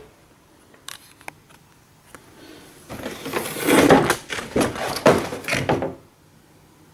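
Cardboard retail box being handled and set down on a wooden tabletop: a couple of small clicks, then about three seconds of rubbing, scraping and knocks.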